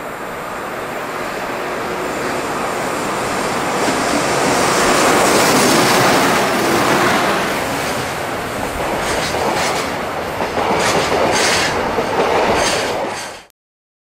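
Freight train hauled by an EH500 electric locomotive passing close by, the sound of wheels on rails rising to its loudest about six seconds in. Near the end the container wagons' wheels clatter in a quick run of clicks over the rail joints, then the sound cuts off abruptly.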